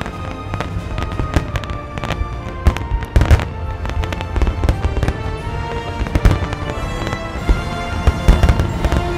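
Aerial fireworks shells exploding in quick succession, a string of sharp bangs and crackles, the loudest about three seconds in and again near the end, over steady music.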